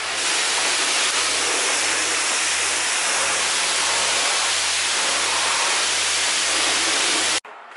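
Self-serve car wash pressure wand spraying a steady high-pressure jet of water onto a camper trailer: a continuous loud hiss that cuts off suddenly near the end.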